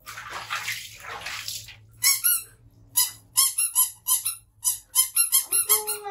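Water splashing briefly, then rubber squeaky toy lizards squeezed over and over: short, sharp, high squeaks about two or three a second, coming faster near the end and closing on a longer, lower squeak.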